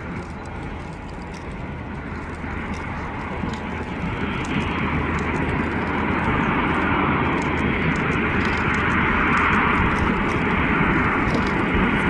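Airbus A350's jet engines running, a steady rushing noise with a low hum underneath that grows louder from about four seconds in.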